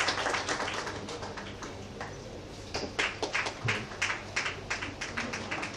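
Audience applause dying away, followed by a few scattered sharp claps or taps at irregular intervals.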